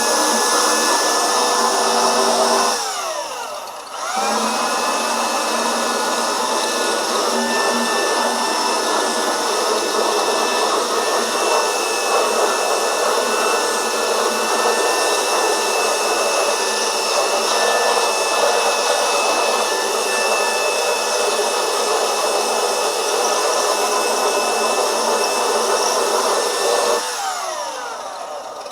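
Power sander running on the body work, sanding down chipped paint. Its motor winds down about two and a half seconds in, starts back up a second later, and runs steadily until it winds down near the end.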